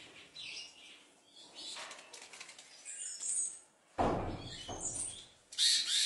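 Victoria crowned pigeon's wings flapping: a sudden loud whoosh about four seconds in and another near the end, with faint high chirps in between.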